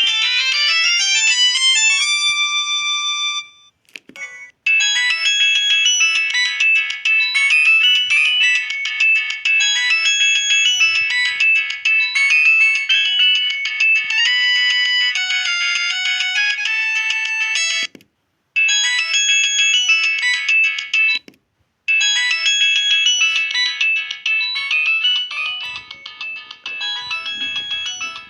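Samsung SGH-M610 mobile phone playing its built-in polyphonic ringtones one after another, synthesized multi-voice melodies. One tune ends a few seconds in, a new one runs until about two-thirds through, then two more start after short breaks, each cut off abruptly with a click at the change.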